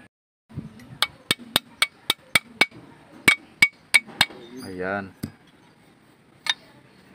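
Steel bar tapping a retaining clip onto the parking-brake lever pin of a drum brake shoe: about eleven sharp, ringing metal knocks at about four a second in two quick runs, then two more single taps near the end.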